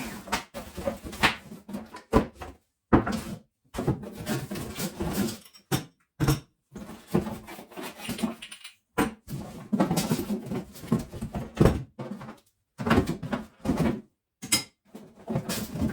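A cardboard box being opened and its packaging handled, with rustling and scraping in irregular bursts and the odd knock, broken by short pauses.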